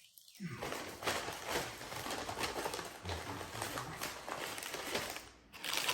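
Paper bags and food packaging rustling and being handled, with many light irregular taps and crinkles.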